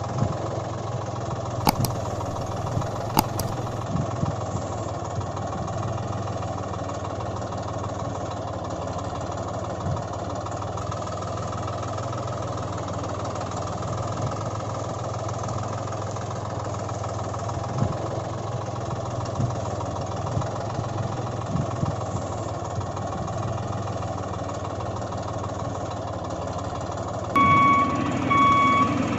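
A tractor engine runs steadily at a low rumble, with two sharp clicks a couple of seconds in. Near the end, a reversing alarm starts beeping evenly.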